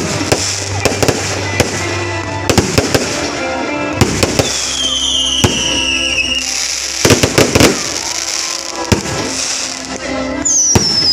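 Fireworks going off in quick succession: many sharp bangs and crackles, with whistles falling in pitch about four seconds in and again near the end, over background music.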